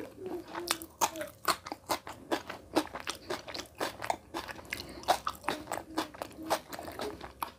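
A man chewing a mouthful of rice and curry close to the microphone: irregular mouth clicks and smacks, several a second.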